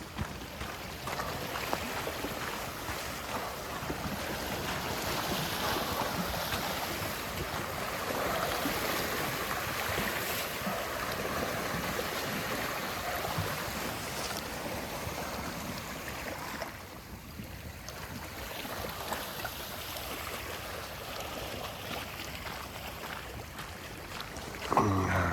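Lake Superior waves washing through shore ice, a steady hissing wash dotted with many small crackles and ticks of the ice moving in the water. A brief, louder sound falling in pitch comes just before the end.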